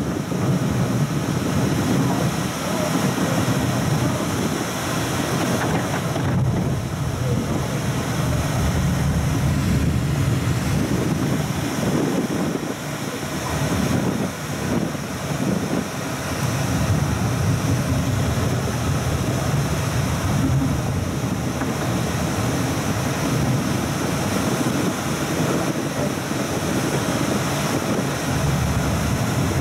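South Shore Line electric multiple-unit commuter train running at speed, a steady rumble of wheels on rail with hiss above it, heard from inside the front car. It eases off slightly for a moment about halfway through.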